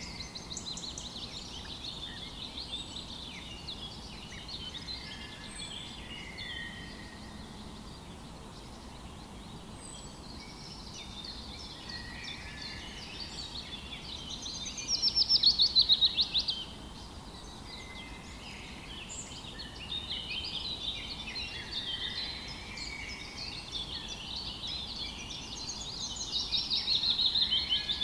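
Several songbirds singing and chirping over a steady rush of river water. A loud, rapid trill comes about halfway through and another near the end.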